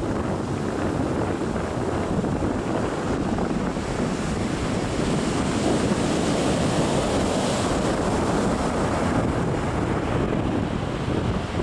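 Ocean waves breaking, a steady, unbroken wash of surf noise, with wind buffeting the microphone.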